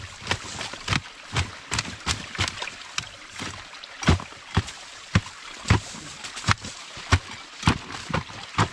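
Hand pruning saw cutting through a stick in a beaver dam, with uneven rasping strokes about twice a second.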